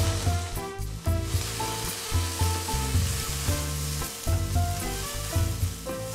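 Diced onion and tomato sizzling in hot oil in a nonstick frying pan, stirred with a plastic spatula in the latter part. Background music with a bass line and a simple melody plays under the sizzling.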